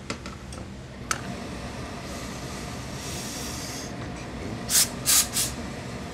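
Steam iron giving three short, loud hisses of steam in quick succession about five seconds in, after a softer hiss a second or so earlier. Underneath is a steady low machine hum, with a couple of sharp clicks near the start.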